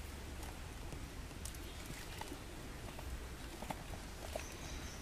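Scattered soft taps, rustles and wet handling noises from hands working with a peeled banana stem, leaves and eels, over a low rumble. A faint, thin high tone enters near the end.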